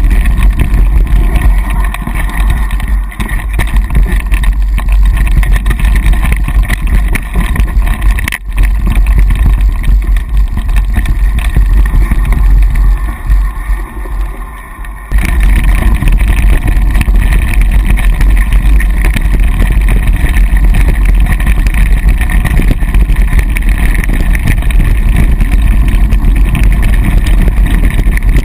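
Wind buffeting the microphone of a camera riding on a mountain bike, a constant heavy rumble mixed with the rattle of tyres and bike over a dirt trail. It eases about halfway through, then comes back abruptly and runs on at full strength.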